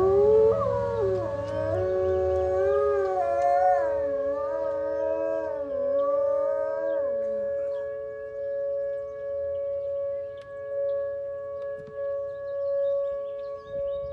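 A dog howls one long, wavering howl for about seven seconds, its pitch falling at the end, along with an outdoor tornado warning siren. The siren holds a steady two-pitched tone throughout.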